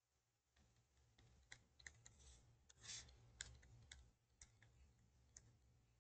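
Very faint taps and short scratching strokes of a stylus writing on a tablet, over a low hum.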